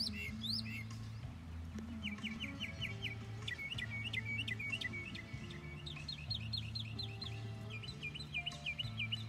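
Songbirds chirping in quick repeated trills, over background music of sustained low notes that change pitch every second or so.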